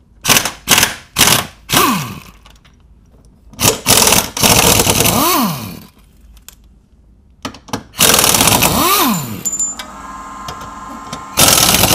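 Pneumatic impact wrench hammering on the 16 mm subframe bolts of a 2002 MINI Cooper: four short rattling bursts, then three longer runs of one and a half to two seconds, each ending with a whine that rises and then falls away.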